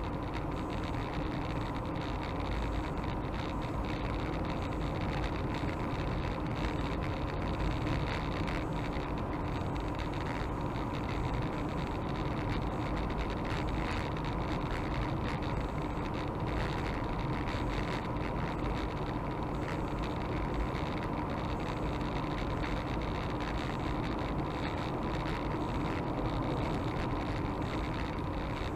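Car driving at a steady speed, heard from inside the cabin: a constant rumble of engine and road noise, with an unchanging hum.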